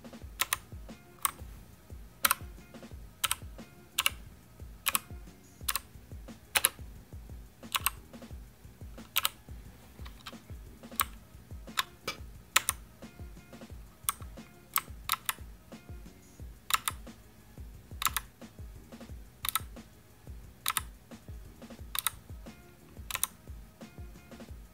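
Single keys on a Motospeed CK61 mechanical keyboard pressed one at a time, sharp clicks about once a second with uneven gaps, as the RGB lighting modes are stepped through. Background music with a steady low beat runs underneath.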